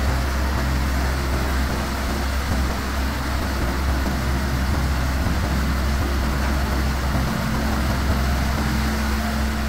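Heavy diesel engines of a dump truck and an NF220 asphalt paver running steadily, a low, even drone, while the truck's bed tips up to pour asphalt mix into the paver's hopper.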